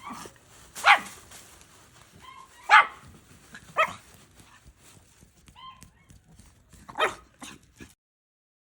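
A dog barking: four sharp single barks spaced one to three seconds apart, with faint short whines between them. The sound cuts off suddenly near the end.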